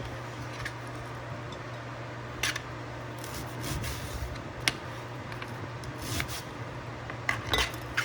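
Food-prep handling noises: a few light, sharp clicks and taps with soft rustling, spread over several seconds, as chopped red onion is dropped into jars. A steady low hum runs underneath.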